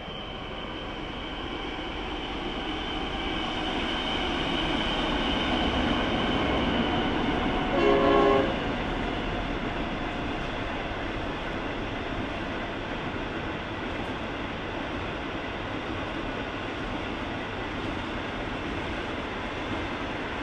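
A train approaching and passing, its rumble building over several seconds. About eight seconds in comes one short horn blast, followed by the steady rolling noise of the train going by.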